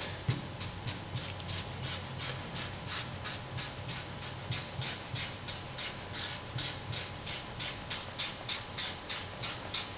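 Hand rubbing quickly back and forth over a paper template laid on a pine board, about four to five strokes a second. It is the wiping of lacquer thinner into the paper to transfer the laser-printed toner onto the wood.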